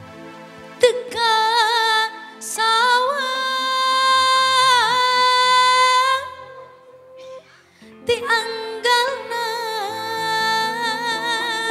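Female singer, amplified through a microphone, holding long ornamented notes with strong vibrato in two phrases, with a short break between them about six seconds in, over sustained keyboard chords.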